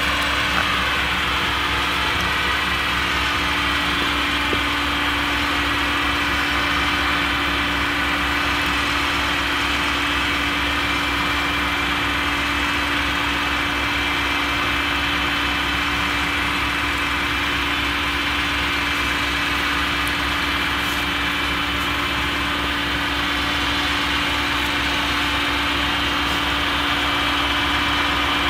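Claas Jaguar 970 forage harvester with its MAN V8 engine running steadily, a constant drone with a high whine from the machine.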